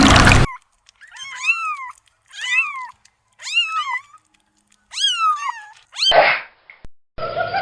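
Domestic cat meowing four times in separate calls, each rising then falling in pitch. A loud noisy sound cuts off about half a second in, a short burst of noise comes after the last meow, and another noisy sound starts near the end.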